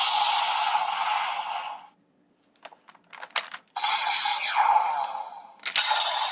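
Electronic sound effects played by a Kamen Rider transformation toy, with falling whooshes, broken by a pause filled with a few sharp plastic clicks and one loud click near the end.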